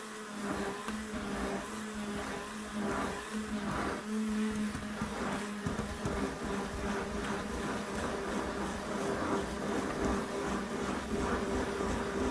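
Stick blender running steadily in thick hot-process soap batter, stirring down the volcanoing batter to speed up the cook. Its motor hum changes tone about six seconds in.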